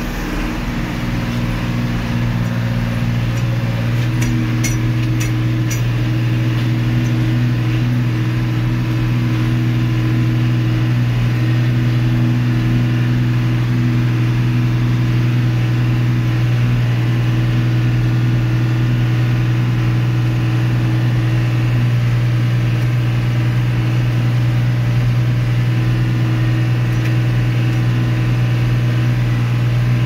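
John Deere 3155 tractor's six-cylinder diesel engine running steadily under load while pulling a disc harrow through the ground, heard from the driver's seat. It grows a little louder over the first several seconds and then holds even.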